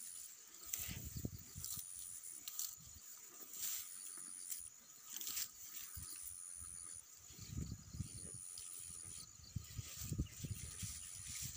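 A cow grazing close by, tearing grass in short crisp rips about once a second. A low rumble comes and goes, and a thin high call repeats every second or two.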